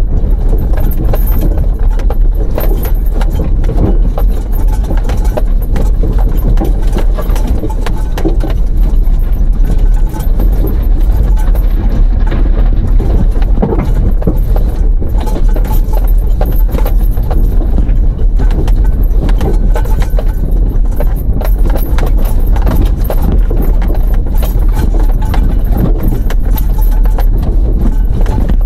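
Vehicle driving slowly over a rough dirt and gravel track, with a steady low rumble and continual knocks and rattles as it bumps along.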